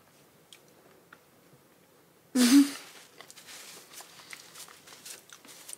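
Wet mouth sounds of someone eating soft, creamy durian flesh: scattered small smacks and clicks of chewing and lips. About two seconds in there is a short, loud, breathy voiced sound, like an "mm" or a sniff.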